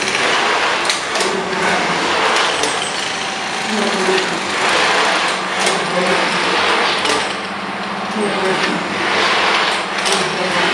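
A small CNC machine running through a programmed test move, its drive motors humming at tones that change pitch every second or two as the axes change speed and direction, over a steady rushing machine noise.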